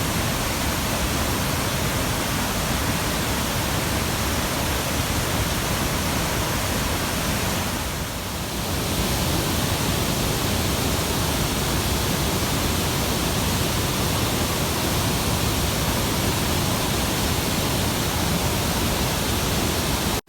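Steady, even rush of a large river waterfall's falling water, easing slightly for a moment about eight seconds in.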